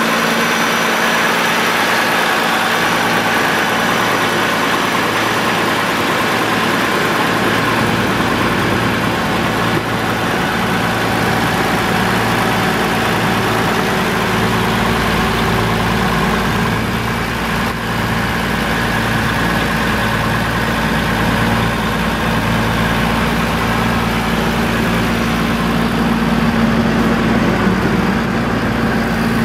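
Cummins L10 inline-six diesel engine of a 1990 Champion 740A motor grader idling steadily.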